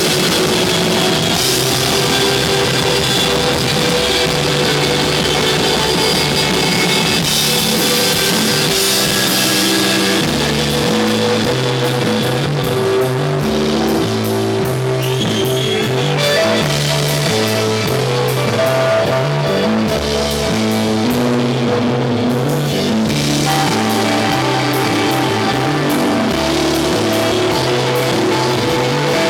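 Rock band playing live: electric guitar, bass guitar and drum kit, with cymbals ringing throughout. About a third of the way in, a heavy bass line comes to the front, stepping between notes in a repeating pattern.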